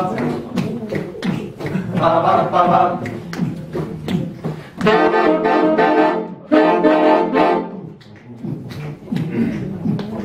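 Saxophone ensemble of altos, tenors and a soprano playing held chords in short phrases. A steady rhythmic clicking runs underneath, and there is a brief lull about eight seconds in.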